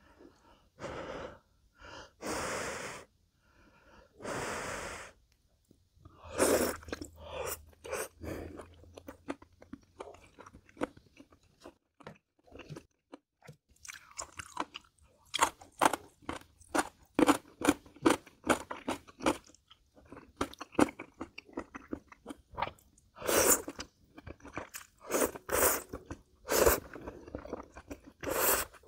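Close-miked mukbang eating of jjambbong: three long slurps of noodles in the first few seconds, then steady crunchy chewing with many sharp crunches.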